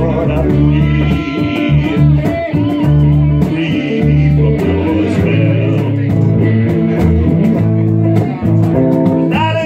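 Live electric blues played on two electric guitars over a bass guitar, with the lead guitar bending notes up and down, most clearly near the end.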